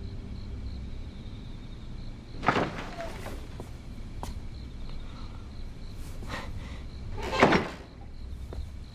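Two short thuds over low room tone, one about two and a half seconds in and a louder one near the end, with a few faint clicks between them.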